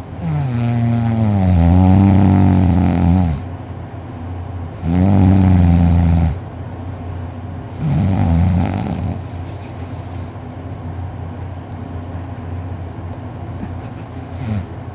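A man snoring in deep sleep: three loud snores, the first about three seconds long, each wavering in pitch, then quieter breathing for the last few seconds.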